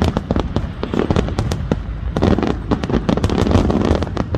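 Aerial firework shells bursting in a rapid barrage: a dense run of sharp bangs and crackles over a continuous low rumble.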